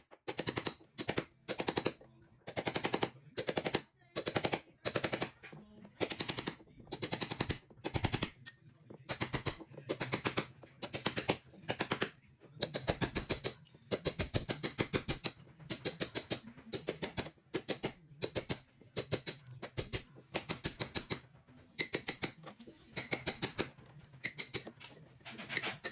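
Hammer drill run in repeated short on-off bursts, each burst a fast rattle of impacts over a steady motor hum, cutting into the wall for an electrical back box.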